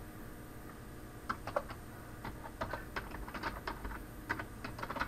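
Typing on a computer keyboard: irregular, fairly quiet keystrokes as an e-mail address is typed in, starting about a second in.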